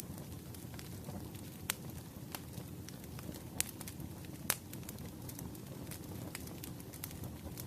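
Wood fire burning steadily, a low rushing rumble with sparse sharp crackles and pops, the loudest about two seconds in and again about four and a half seconds in.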